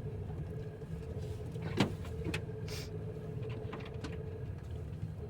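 Off-road 4x4 driving on a dirt forest track, heard from inside the cabin: a steady low engine and road rumble, with one sharp knock about two seconds in and a few lighter clicks.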